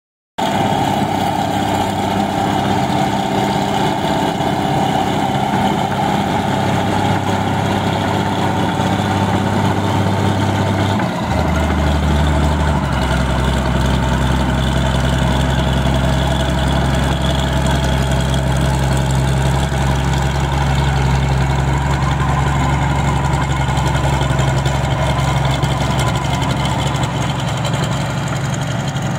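New Holland 1545 combine harvester's diesel engine running steadily as the tracked machine drives; about 11 seconds in, the engine note drops lower and stays there.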